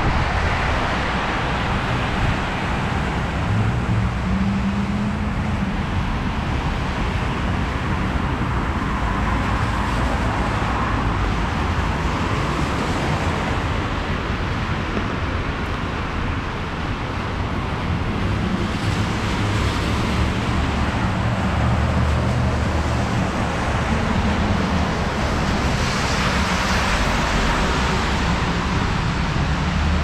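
Street traffic on a wet road: cars passing with tyre hiss over a steady low rumble of engines. The hiss swells twice as vehicles go by.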